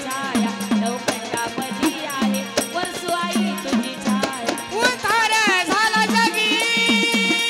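Marathi folk devotional music: drum strokes and small hand cymbals keep a fast, steady beat. About five seconds in, a singing voice bends through a few notes, then holds one long note.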